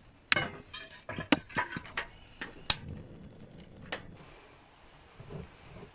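Light, irregular clicks and knocks as tea things are handled in a small enclosed space: about ten sharp ticks and taps over the first four seconds, fading to a few faint soft sounds near the end.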